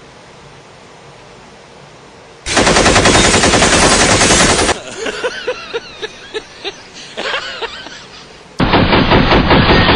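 Two long bursts of rapid automatic gunfire, the first about two and a half seconds in and the second near the end, with separate sharp cracks in the quieter stretch between.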